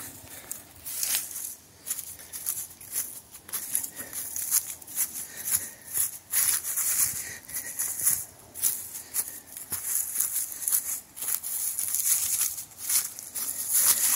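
Footsteps crunching through dry fallen leaves on a forest trail, a steady walking rhythm of rustling crunches.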